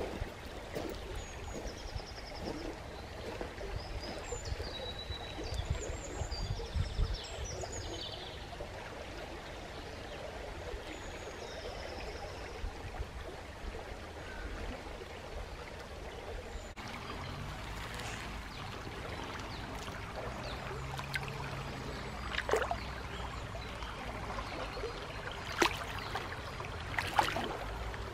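Steady rushing of a flowing stream, with short high bird chirps over it in the first several seconds. The sound shifts abruptly about 17 seconds in, and a few sharp knocks come near the end.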